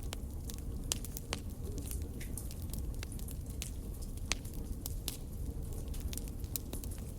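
Fire burning, with irregular sharp crackles and pops over a low steady rumble; the loudest pop comes a little past the middle.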